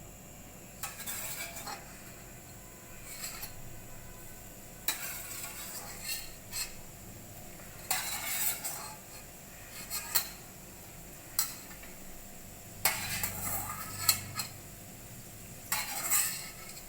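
A spoon stirring and scraping against a kadhai holding simmering vegetables and spiced water, in irregular strokes with occasional clinks of metal on the pan.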